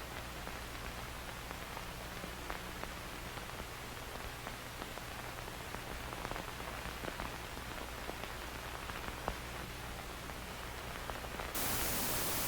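Steady hiss with a low mains hum and scattered crackles and pops, like worn old tape or film noise. About eleven and a half seconds in, a louder, even static hiss cuts in suddenly.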